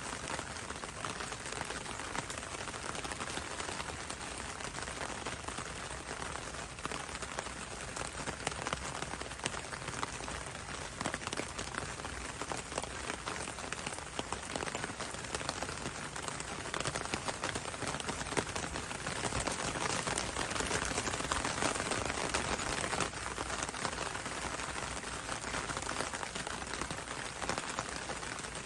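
Steady rain falling on leaves: an even hiss of rainfall full of separate drop hits, growing a little heavier about two-thirds of the way through.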